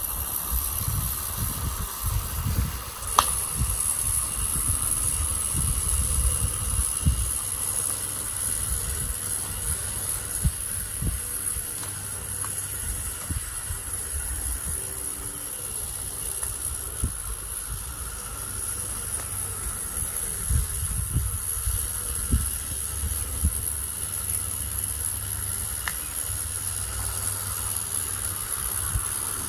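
Regner Paul live-steam tram locomotive running on a garden railway: a steady high hiss from its burner and steam, over an uneven low rumble. Its burner has a secondary air hole milled in the collar, which makes it quieter and its flame more regular. A single sharp click about three seconds in.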